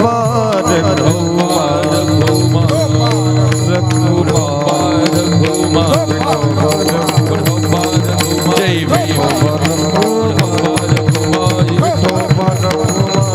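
Marathi kirtan music: devotional chanting over a steady held drone, with a hand drum and small jingling cymbals keeping the beat.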